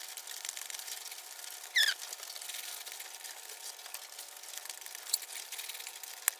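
Metal spatula scraping and stirring a thick, sticky mash of arum flowers and dried fish in an aluminium pot: soft, irregular scrapes and squelches. A brief, louder scraping squeak comes about two seconds in, and a sharp click near the end.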